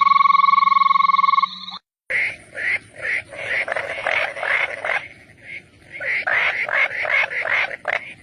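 Frog calls, two different calls one after the other: first a loud, steady buzzing call that stops just under two seconds in, then after a short break rapid pulsed croaking in two long runs, with a faint high steady tone behind it.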